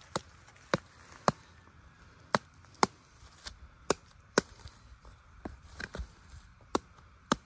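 A knife chopping into the thick, spiky husk of a durian to split it open: about ten sharp knocks at irregular gaps of half a second to a second.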